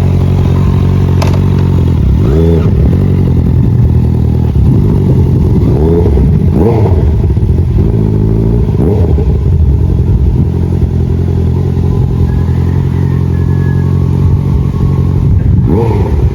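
Honda CBR650R inline-four running through a full Akrapovič titanium exhaust, idling steadily and revved in several short throttle blips, the last one near the end.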